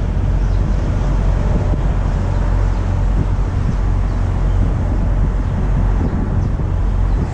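Strong wind buffeting the microphone, a loud, uneven low rumble, with a faint steady hum underneath.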